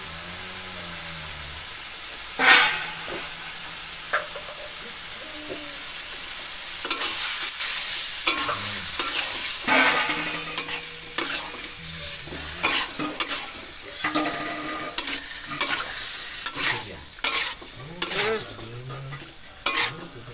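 Squid and tomato frying in a wok with spice paste, sizzling steadily, while a metal spatula scrapes and clacks against the pan as it is stirred, the strokes coming thick and fast in the second half. A single sharp knock about two and a half seconds in.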